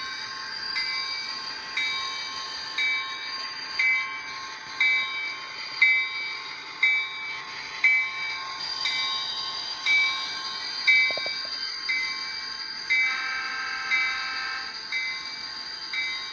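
An HO-scale EMD SD40-2 model's DCC sound decoder ringing the locomotive bell, played through the model's small speaker. It strikes about once a second over a steady engine sound, and a horn sounds for about two seconds near the end.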